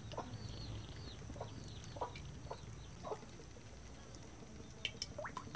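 Chickens clucking faintly, a handful of short clucks spread through, with a few high chirps in the first second or so over a low steady rumble.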